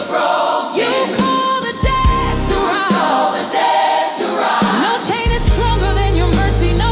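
Worship music with choir-like singing. A deep, steady bass comes in about five seconds in.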